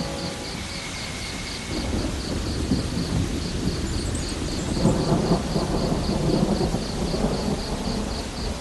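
Low rolling thunder over a steady noisy hiss, swelling about five seconds in, with crickets chirping in an even rhythm of about four chirps a second.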